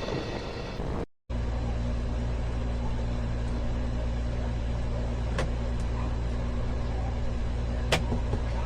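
A steady low mechanical hum with a couple of faint clicks, starting after a brief dropout about a second in.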